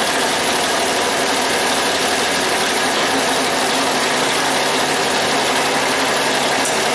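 Campbell Hausfeld air compressor running on its freshly replaced capacitor, a steady loud mechanical drone; the new capacitor is failing and blows out moments later.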